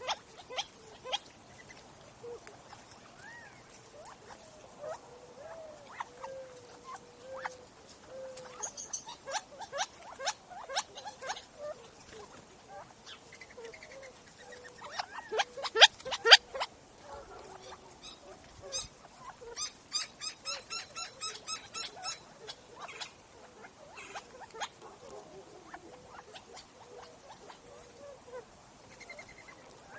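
Quail and other small desert birds feeding right at the microphone: many sharp pecking and scratching clicks, loudest in a burst about halfway through. Soft low calls waver throughout, and a quick regular run of chirps comes about two-thirds of the way in.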